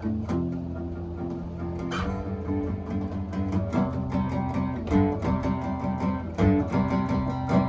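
A band playing a song's instrumental intro on guitar and bass guitar, with a steady beat.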